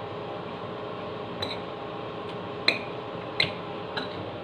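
Metal spoon clinking against a bowl while scooping food: four short, sharp clinks spread over a few seconds, over a steady background hum.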